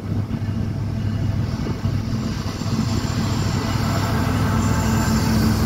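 CSX freight train's lead diesel-electric locomotives passing close, engines droning steadily and wheels rumbling on the rails, growing louder as the units go by.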